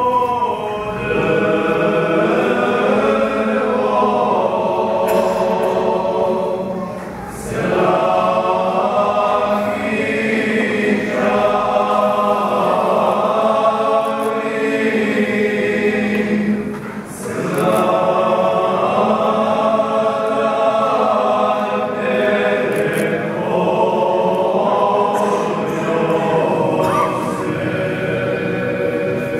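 A choir singing a traditional church chant together in long phrases, with short breaks for breath about seven and seventeen seconds in.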